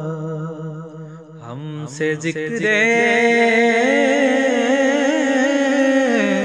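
A man singing a naat, a devotional poem in praise of the Prophet Muhammad, in a chant-like melody over a steady low drone. The singing dips briefly about a second in and comes back louder and fuller from about two and a half seconds.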